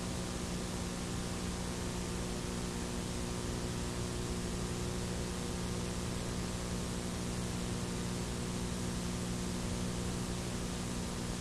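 Steady hiss with a low electrical hum underneath, the noise floor of an analogue video tape transfer, with no commentary or crowd sound.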